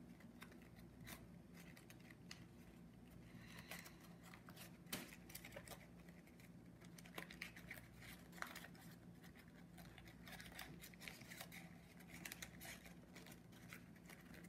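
Faint rustling and crinkling of folded origami paper being worked by hand as a flap is tucked inside, with scattered small paper clicks, the sharpest about five seconds in.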